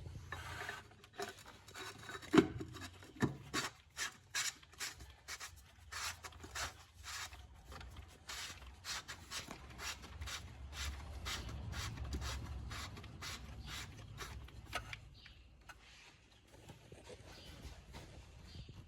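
Oil filter housing cap of a VW T5 1.9 TDI being screwed back on: a long run of short rubbing clicks, about two or three a second, that fades out about three quarters of the way through.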